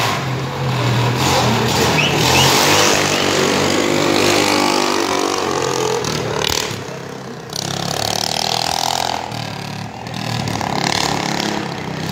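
Homemade go-kart's engine running and revving as the kart is driven, its pitch rising and falling, easing off briefly about seven and again about ten seconds in.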